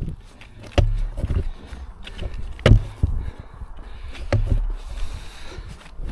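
A hiker's footsteps and trekking-pole tips knocking on a rocky path in a few irregular strikes, with wind rumbling on the microphone.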